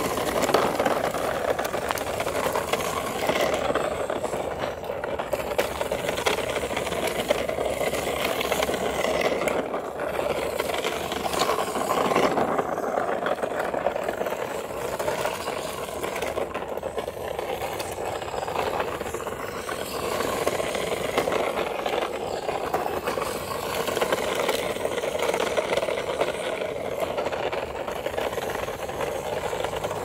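Toy remote-control rock crawler's electric motor and gears running steadily as it tows a plastic toy dump truck, the plastic wheels rattling and scraping over rough concrete.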